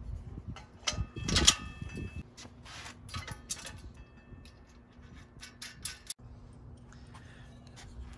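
Metal clinks and knocks of a steel bracket plate being fitted onto a welding table's square steel upright and its bolt. The loudest clank comes about one and a half seconds in and rings briefly, followed by scattered lighter clicks.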